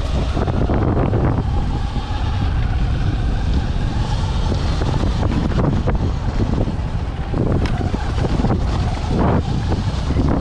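Sur-Ron electric dirt bike riding over a rough, stony trail: wind buffets the action camera's microphone in a steady low rumble, with scattered knocks and rattles from the bike over the stones and a faint steady whine for a few seconds early on.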